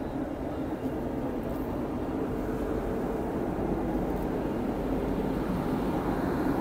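Electric locomotive standing at the platform with its blowers and machinery running, a steady hum that grows slightly louder, with the murmur of a crowd close by.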